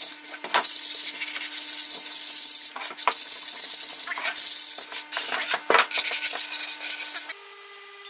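Sandpaper rubbed by hand over the flat wooden top of a box in repeated back-and-forth strokes, a rough scratching hiss. The sanding stops shortly before the end, leaving a quieter steady hum.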